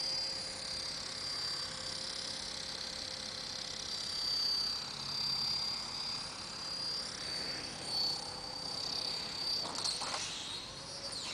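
Electric RC helicopter (Honey Bee King 2) in flight, a high motor-and-rotor whine wavering in pitch as it moves. Near the end a few knocks as it crashes into the goal net, and the whine falls quickly in pitch as the rotor winds down.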